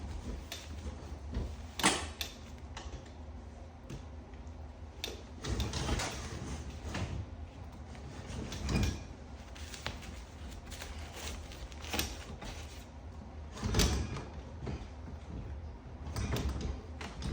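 Irregular clunks and knocks, about half a dozen spread out, the loudest about two seconds in, from handling the dishwasher drain hose and its fittings under the kitchen sink as they are put back together. A steady low hum runs underneath.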